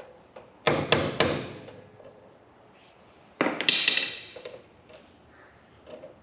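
A hammer striking metal: three sharp blows about a second in, then a quick run of blows a couple of seconds later that leave a bright ringing.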